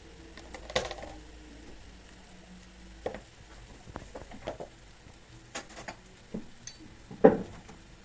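Kitchen handling sounds: scattered taps, clicks and knocks of utensils and dishes during food preparation, with a sharper knock about seven seconds in, over a faint steady hum.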